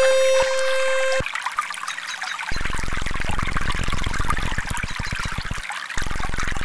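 Recorded trickling water mixed with electronic frequency tones. A steady pitched tone cuts off about a second in. From about two and a half seconds a low buzzing tone pulses rapidly, with a brief break near the end.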